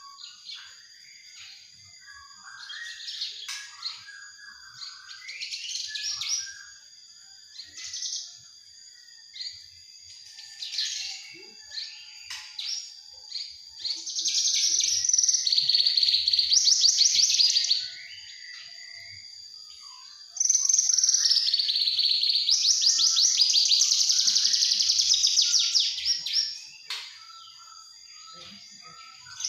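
Young Javan bush lark singing: scattered short chirps and warbled calls, then two long, loud, rapid trilling phrases of a few seconds each in the second half. A steady high-pitched tone runs underneath.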